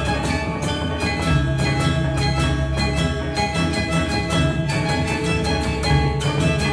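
Indonesian gamelan music: bronze metallophones struck in a quick, even pulse of ringing notes over a held low tone.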